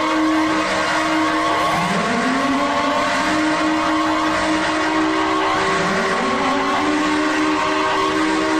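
Fan-made EAS (Emergency Alert System) alarm sound: several steady electronic tones held together, with a siren-like rising sweep about every four seconds and many short sliding tones layered over them.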